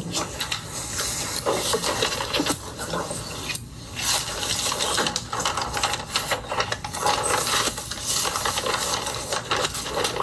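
Handling noise: a steady stream of rustles, small clicks and light clatter.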